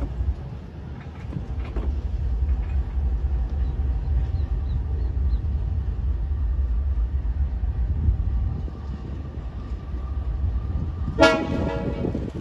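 Diesel-electric freight locomotive running with a low engine rumble, then one short blast of its horn near the end.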